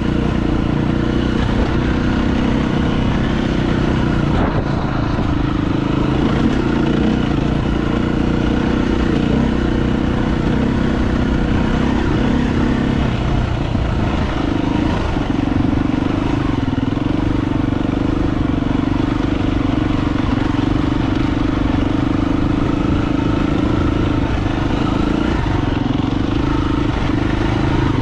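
KTM dirt bike engine running under way, its note rising and falling with the throttle, with a brief drop about halfway through before it settles back to a steady pull.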